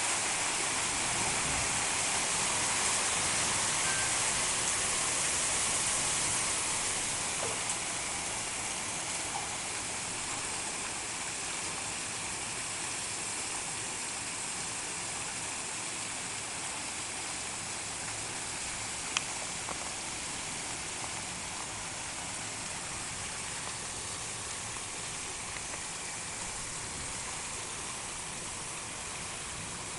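Heavy rain pouring down in a storm: a steady, dense hiss that eases slightly about seven seconds in, with one sharp tick a little past halfway.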